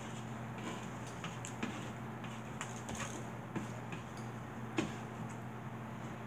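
Eating sounds: scattered small clicks and scrapes of forks on foam plates, with chewing, over a steady low hum. One sharper click comes about five seconds in.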